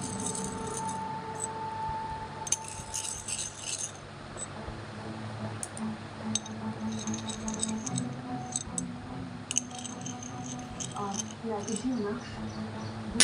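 Light metallic clinking and jingling in short clusters as an old copper coin is handled and turned in the hand, over a steady low background hum.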